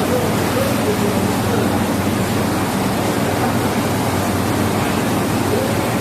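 Steady hiss with a low hum underneath, unchanging and without distinct events.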